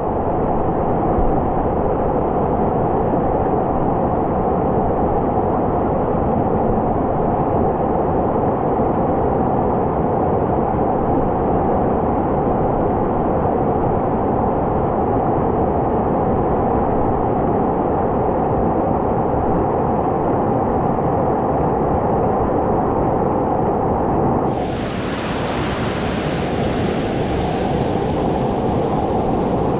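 River Usk's Mill Falls rapid rushing and churning: a loud, steady roar of whitewater heard right at water level. At first it is dull and muffled; about 25 seconds in it turns much brighter and hissier.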